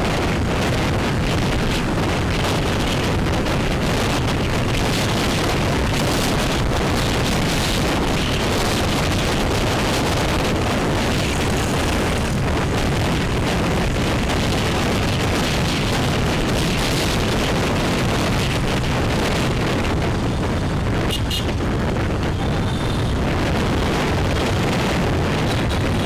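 Steady rush of wind buffeting the microphone of a moving motorbike, with road and traffic noise under it.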